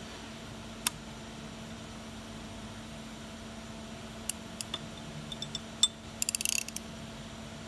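Hand tools working an alternator's freewheel pulley: a sharp metal click about a second in, scattered metallic ticks of wrench and socket, then a quick run of ratchet clicks near the end. A steady low hum runs underneath.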